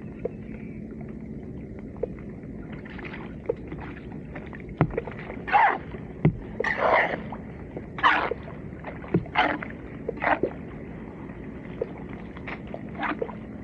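Floodwater splashing and sloshing in irregular bursts, about a dozen of them, as leaves and debris are pulled out of a clogged street drain, over a steady low hum.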